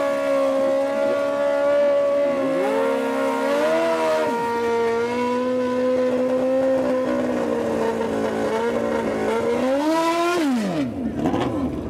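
Drag-racing motorcycle engine held at high, steady revs with the rear tyre spinning on wet pavement in a burnout. Near the end the revs climb briefly, then fall away sharply.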